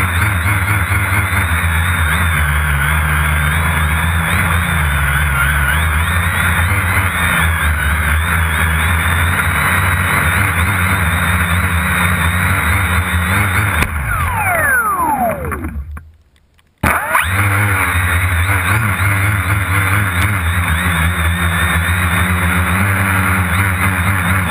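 Quadcopter drone's electric motors and propellers whining steadily, heard from the drone's own camera. About 14 seconds in the pitch falls steeply as the motors spin down and the sound fades to nothing for under a second, then cuts back in abruptly at full level.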